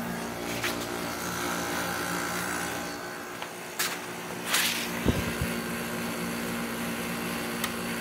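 1998 Gold Star 5,000 BTU window air conditioner running: a steady electrical hum from the compressor and fan with a constant rush of air, the unit now blowing cold. A few short knocks and rustles come around the middle.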